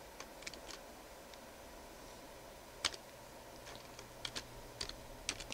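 Computer keyboard keystrokes: a scattering of faint, separate key clicks, sparse at first and coming closer together over the last couple of seconds.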